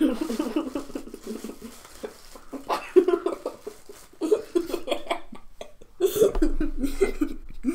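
A man laughing in stifled, breathy giggles, in several bursts with short pauses between them.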